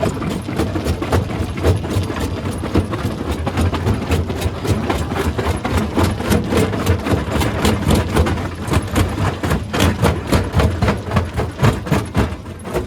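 Rock crusher running under load: a steady low machine drone with rapid, irregular cracks and clatter of stones being broken.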